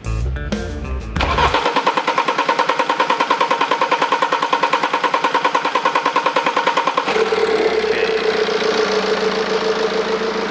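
BMW 5 GT (F07) diesel engine being started for the first time after its fuel system was repaired and re-primed: the starter cranks with an even pulsing for about six seconds before the engine catches and settles into a steady idle.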